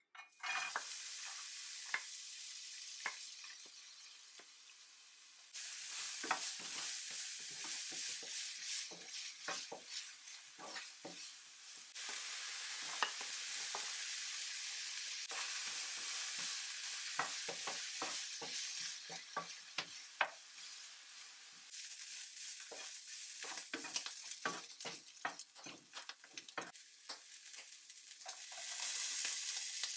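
Diced onion and bacon sizzling in hot oil in a nonstick frying pan, with many quick scraping taps of a utensil on the pan as they are stirred. The sizzle changes level abruptly a few times.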